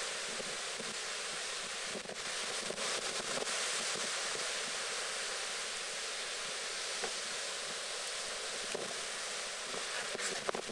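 Storm-surge waves breaking and surf rushing up a flooded slipway, a steady rush of sea noise mixed with wind on the microphone.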